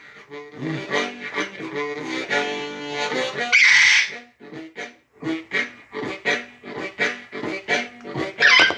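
Blues played on a 365 bass harp (a low-pitched harmonica), chugging rhythmically with held chords. A parrot, a red-sided eclectus, lets out two loud squawks over it, one about halfway through and one near the end.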